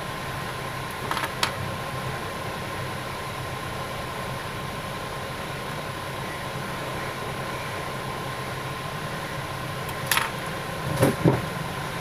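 Steady background hum with a thin constant whine. Over it are a few short clicks and taps, about a second in and again near the end, as a mobile phone's circuit board and display are handled.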